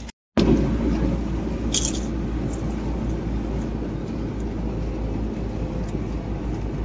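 Steady low engine and road rumble heard from inside the cabin of a van moving at highway speed, with a short hiss about two seconds in.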